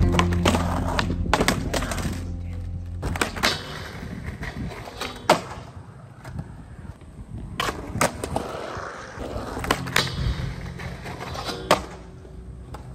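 Skateboard wheels rolling on smooth concrete, with about ten sharp clacks of the board slapping the ground as tricks are popped and landed. Music plays underneath.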